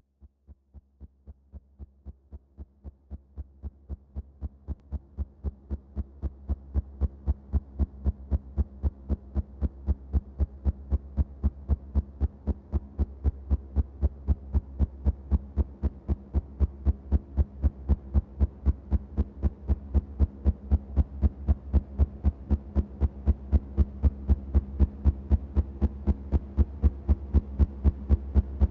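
Eurocopter EC135 helicopter in flight, its rotor beating in an even, rapid train of pulses over a low hum. The beat grows steadily louder as the helicopter approaches.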